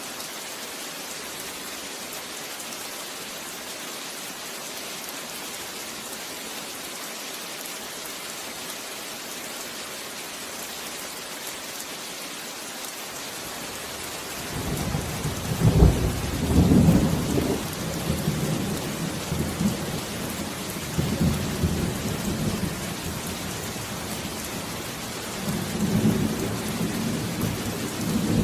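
Steady heavy rain with thunder: the rain hisses evenly, then about halfway through a long low rumble of thunder comes in and rolls on in several swells, loudest just after it begins and again near the end.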